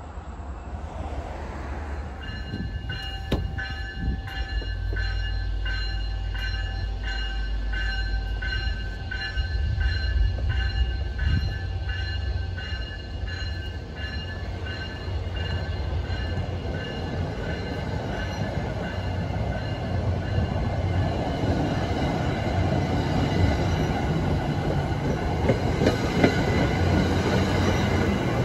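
MBTA commuter rail train passing a station platform. Over a low rumble, a bell-like ringing pulses about twice a second for roughly the first half. Then the wheel and rail noise of the passing coaches rises and is loudest near the end.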